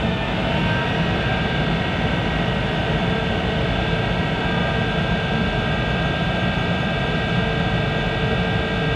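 1951 Monarch 10EE lathe running with its spindle at high speed and no cut being taken: a steady machine whine made of several constant tones over a low rumble.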